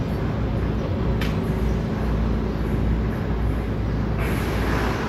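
Steady low outdoor rumble with a steady hum in the low end, swelling into a brighter rushing hiss for about a second near the end.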